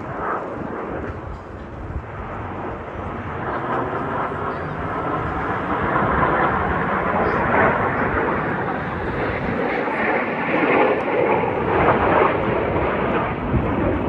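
CT-114 Tutor jets of the Snowbirds aerobatic team flying past, their jet noise growing louder over the first several seconds and then staying loud.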